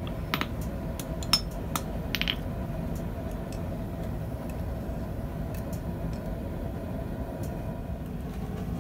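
Several light metallic clinks and a short ring in the first couple of seconds as a hammer and tongs are set down and picked up on steel, then a few faint ticks over a steady low rumble.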